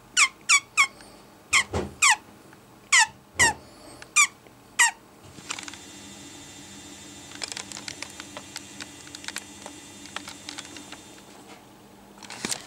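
Pet rat squeaking: about nine short, high squeaks, each falling sharply in pitch, in quick succession over the first five seconds, then only faint clicks.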